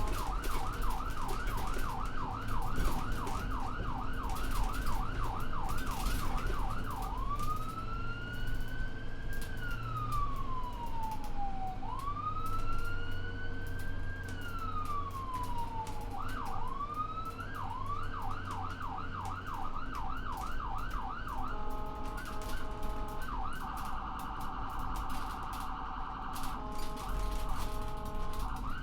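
Electronic ambulance siren heard from inside the vehicle, cycling through its tones. First comes a fast yelp of about three sweeps a second. Then a slow wail rising and falling over about five seconds, twice, then the yelp again. Near the end it switches to short stepped tones and a very rapid warble before going back to the yelp, with a low rumble underneath throughout.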